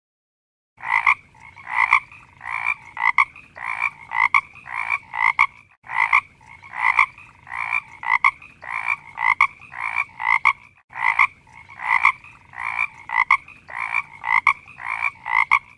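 Frog croaking in a steady, even rhythm of nearly two croaks a second, a recorded croak clip that cuts out abruptly and restarts twice.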